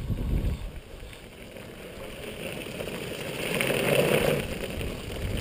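Mountain board's big pneumatic tyres rolling and skidding over gravel, with a long stick dragged scraping along the ground. The gravel crunch swells from about two and a half seconds in and is loudest around four seconds.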